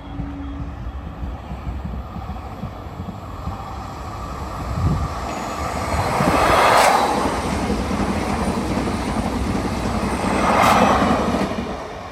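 A train passing on the tracks: wheel and rail noise builds up, swells twice to loud peaks about halfway through and again near the end, then dies away.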